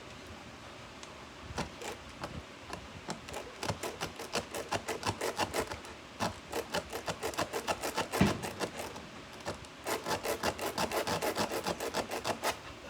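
Tire plug kit's rasp reamer being worked rapidly in and out of a puncture in a rubber tire, a rasping scrape of several strokes a second in runs with short pauses, with one heavier knock about eight seconds in.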